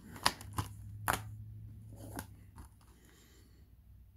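Plastic Blu-ray cases being handled, giving about five sharp plastic clicks and clacks in the first two and a half seconds, the loudest about a second in, then only faint handling.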